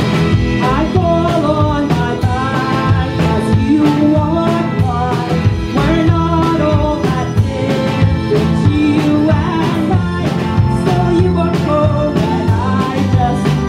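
A live indie pop band playing a song with drum kit, bass, electric guitar and keyboard, and a voice singing the melody over them.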